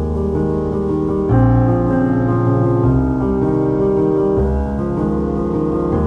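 Background music: slow, soft piano playing held chords that change every few seconds.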